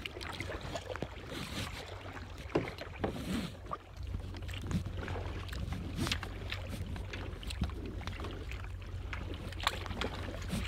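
Kayak paddling: the paddle dipping and splashing in the water, with scattered drips and small knocks. A steady low wind rumble sits on the microphone underneath.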